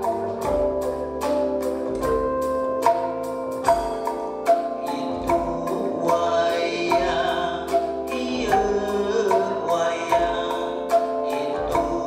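Ensemble music led by a calung renteng, the Sundanese instrument of bamboo tubes struck with a mallet, playing a quick run of pitched knocks over bass guitar and drums with a low beat about once a second. A singing voice comes in about halfway through.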